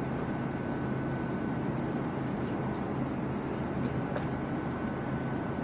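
Steady background hum and rush of a restaurant dining room, with a faint steady high whine running through it. A few light clicks come near the middle.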